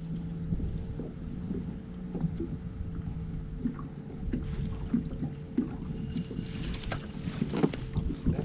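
Gusty wind buffeting the microphone and small waves slapping against a fishing boat's hull, with scattered light knocks and a steady low hum underneath.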